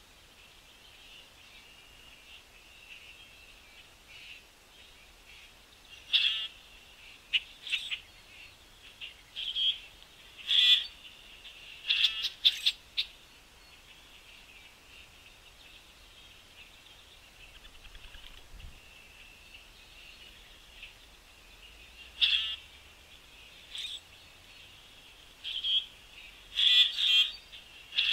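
Small birds chirping in short, loud clusters of sharp calls, over a steady faint high trilling in the background.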